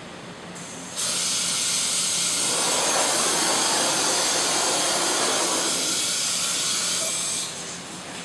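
Loud, steady hiss of rushing air from industrial forming or cutting machinery. It switches on abruptly about a second in and cuts off about a second before the end.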